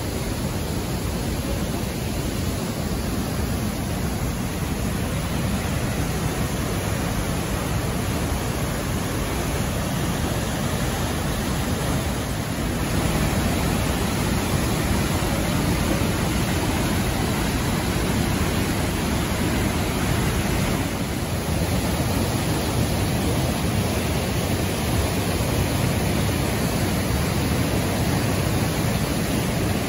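Storm-swollen mountain creek in flood, whitewater rushing down a rocky gorge and over boulders as a steady, powerful rush of water; it gets a little louder about halfway through.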